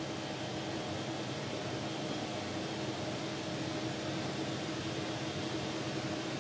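Steady hum and hiss of the International Space Station's ventilation fans and onboard equipment, with a few faint steady tones running through it.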